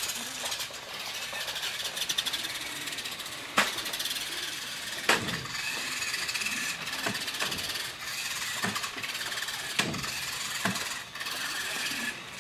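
A radio-controlled toy car's motor whirring in short bursts as it is driven on grass, with a few sharp knocks.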